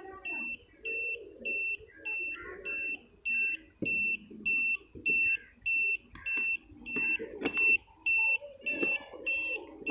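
Premium HD Model 8900 satellite finder meter beeping steadily, about two short high-pitched beeps a second: its tone for a locked satellite signal. A few handling knocks come through around the middle and near the end.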